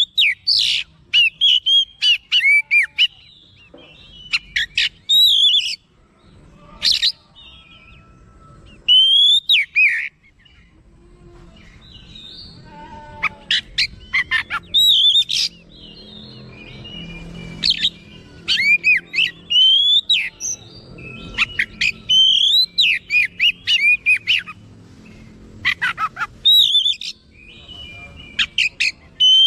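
Oriental magpie-robin (kacer) singing: loud, varied whistled phrases of quick rising and falling notes in rapid bursts, with a short pause about ten seconds in.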